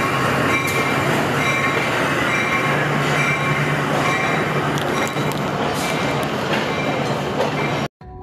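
Pakistan Railways passenger coaches rolling slowly past close alongside a station platform: a loud, steady rumble of wheels on rails with a high thin squeal over it and occasional faint clacks. The sound cuts off sharply just before the end, and music begins.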